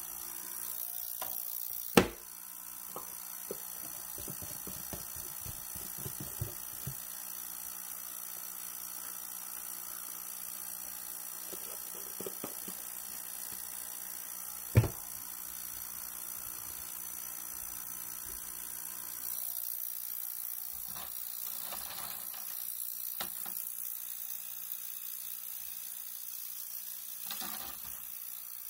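Quiet handling noises on a work table: two sharp knocks of something set down on a hard surface, about 2 seconds in and again midway, with runs of small scratchy ticks between them over a steady hiss.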